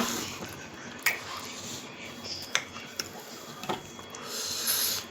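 Mouth sounds of someone eating: a few short smacking clicks while chewing, then a breath out near the end.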